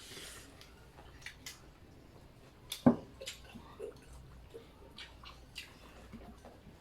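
Eating sounds at a meal: scattered small clicks and smacks, with one sharp knock about three seconds in.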